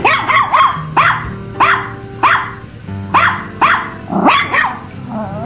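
A puppy barking in short, high, sharp yips, about ten in a row, stopping near the end, over background music with steady held notes.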